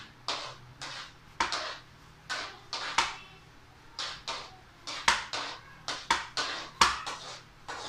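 A quick, irregular run of sharp knocks or taps, about three a second, each with a brief ringing tail.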